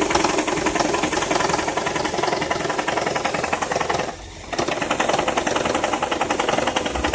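Toyota Prius petrol engine running with a rapid, even knocking from the engine bay, briefly dropping away a little after four seconds in. It is an unexplained knock, intermittent rather than constant, which the owner links to the engine starting to jerk.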